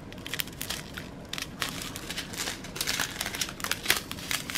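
Small clear plastic zip bags of round diamond-painting drills crinkling as they are handled, in a run of irregular crackles.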